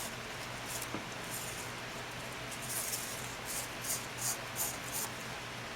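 Nylon paracord being threaded through a loop, sliding and rubbing in a series of short swishes, more of them in the second half.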